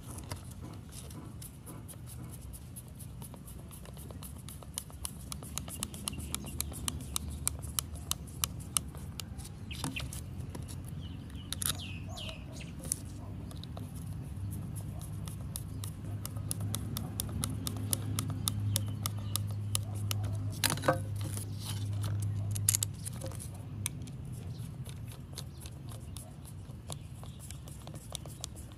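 A screwdriver working the gear-head screws out of an angle grinder: a steady run of small metallic clicks and taps from the screwdriver and the grinder's housing, with a couple of sharper clicks about three-quarters of the way through. A low hum sits underneath.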